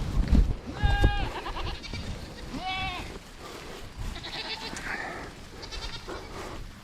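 Nigerian Dwarf goats bleating: two clear calls about one and three seconds in, then higher, quavering bleats later on. A low rumbling on the microphone accompanies the first second.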